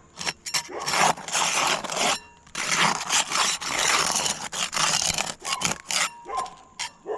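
A flat metal roofing tool scraping and prying under laminated asphalt shingles (IKO Cambridge) to break them loose from the shingles beneath, in a run of rough scraping strokes with a few short sharp clicks near the end.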